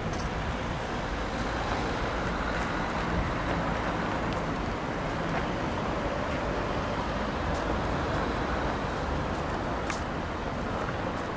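Steady road traffic noise from cars passing on a town street.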